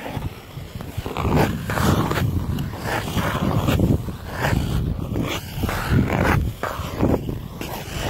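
Ice skate blades scraping across frozen pond ice in repeated strokes, roughly one or two a second, over a low rumble.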